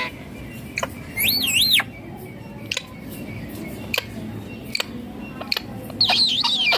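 Indian ringneck parakeet giving two high, warbling whistled calls, a short one about a second in and a longer, faster-wavering one near the end, with scattered sharp clicks in between.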